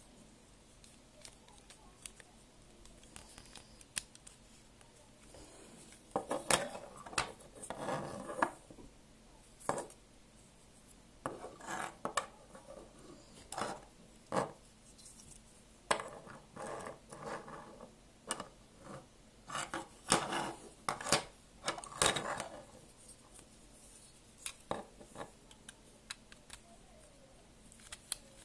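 Plastic Lego bricks of a three-piece puzzle clicking, knocking and rubbing against each other as the pieces are slid apart, handled and put back together. The sounds come in scattered bursts of sharp clicks and short scrapes, starting about six seconds in and busiest in the middle.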